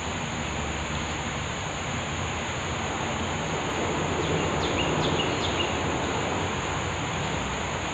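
Outdoor riverside ambience: a steady rushing noise under a constant high insect drone, with a few short bird chirps around the middle.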